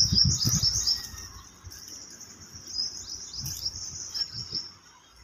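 Continuous high-pitched chirping from small wild creatures, a rapid run of short falling chirps repeating many times a second. A few low thumps sound in the first second.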